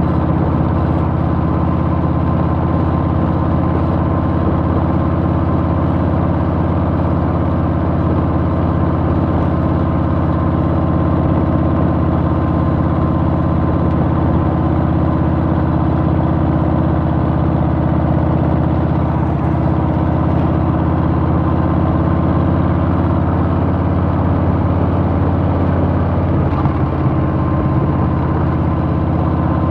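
Harley-Davidson Softail's Milwaukee-Eight V-twin engine running steadily, holding an even note with no revving.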